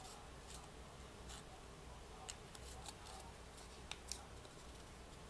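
Faint, scattered crinkles and small clicks of thin coloured paper being pinched and pressed together by fingers, with a low hum underneath.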